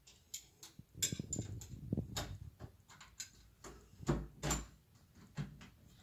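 Irregular small clicks and knocks of smart-lock hardware (keypad and mounting plate) being handled and positioned against a door, with a few duller thumps.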